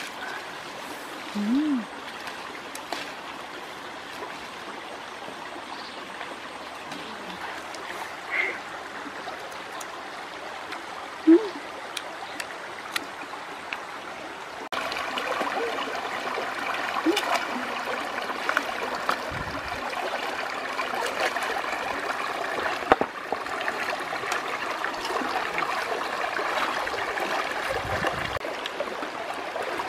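Shallow rocky stream trickling and flowing steadily, louder from about halfway through, with a few brief clicks and small knocks over it.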